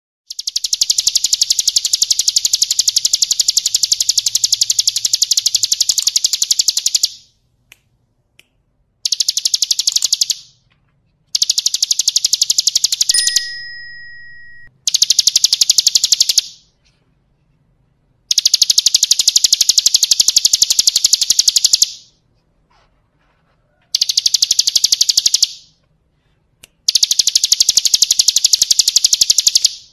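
Bar-winged prinia (ciblek kristal) singing in long bouts of very rapid, buzzy trilled notes. There are seven bursts of a few seconds each, with short pauses between them.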